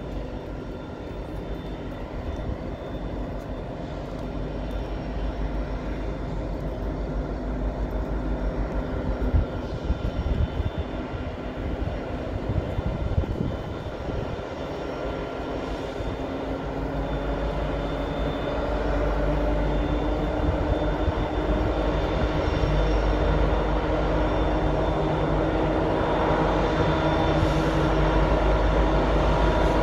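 CN diesel freight locomotives running, a steady engine drone with a low rumble that grows louder as the train approaches; one tone in the drone climbs slightly about halfway through.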